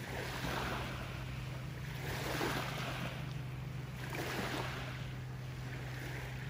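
Sea waves washing in, swelling and falling back every second or two, over a steady low hum of a motorboat engine.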